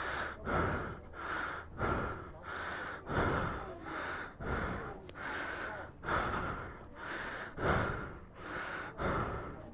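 A person breathing heavily and panting close to the microphone. Loud rushes of air come about once a second, with softer breaths between them.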